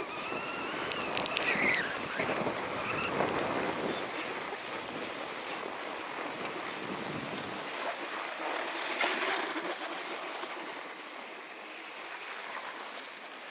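Skis hissing and scraping over packed piste snow, with wind rushing on the microphone. The low wind rumble drops away a little over halfway through as the skier slows almost to a stop.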